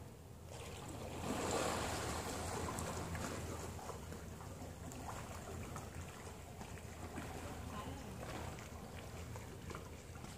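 Pool water splashing from a person swimming, loudest about a second and a half in, then continuing as uneven splashing of swimming strokes.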